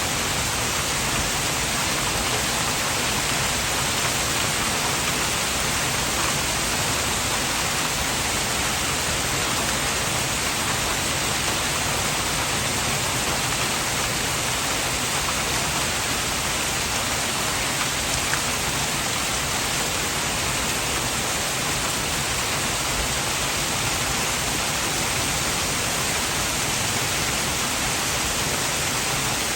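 Heavy rain falling in a hailstorm, an even, unbroken hiss.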